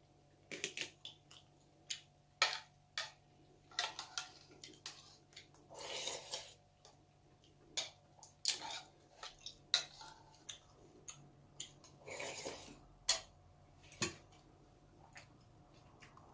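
Eating at the table: a spoon and chopsticks clicking irregularly against bowls and side-dish plates, with two longer stretches of eating noise, about six seconds in and again about twelve seconds in.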